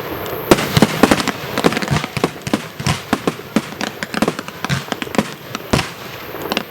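Fireworks display at close range: a rapid barrage of small shells bursting, with sharp bangs and crackling several times a second. A few bangs stand out louder, about half a second in and again near the end.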